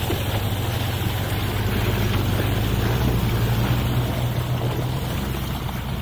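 Heavy off-road vehicle engines running steadily under load as the truck and logging machine work through deep mud, with wind noise on the microphone.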